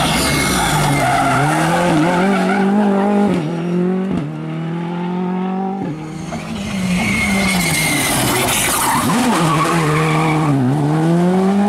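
Rally cars, a Ford Fiesta and then a Škoda Fabia, at full throttle through corners. The engine note climbs and drops back several times with quick gearshifts. Near the end revs dip and climb again as a car powers out of a hairpin, with tyres squealing.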